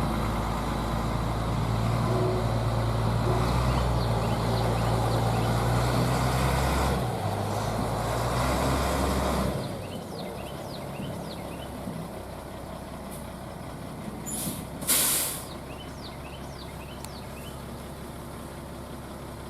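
An engine running steadily with a deep hum, dropping off sharply about ten seconds in, then a short sharp hiss of air about fifteen seconds in.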